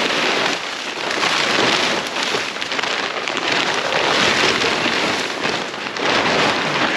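Plastic silo cover sheeting being pulled and bunched up, crinkling loudly in waves that swell and ease every second or two.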